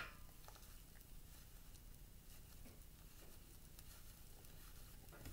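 Near silence: quiet room tone, with one faint click right at the start.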